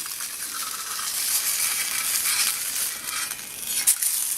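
Grits patties frying on high heat in oil in a mess kit frying pan: a steady sizzle with crackling and popping from water in the grits meeting the hot oil. A single sharp click sounds a little before the end.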